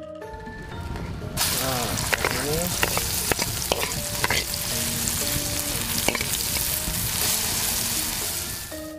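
Ground spice paste of shallots, garlic, chilli and spring onion hitting hot cooking oil and frying, with a loud sizzle that starts suddenly about a second and a half in, and the clicks and scrapes of a spatula stirring it in the pan.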